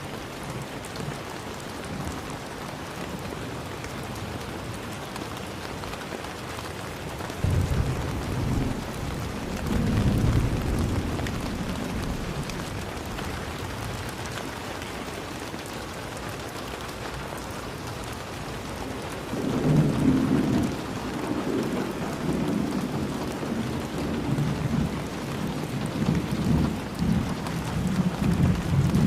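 Steady rain falling, with thunder: a low rumble comes in suddenly about a quarter of the way through and swells again a few seconds later, then after a calmer stretch longer rolling rumbles run through the last third.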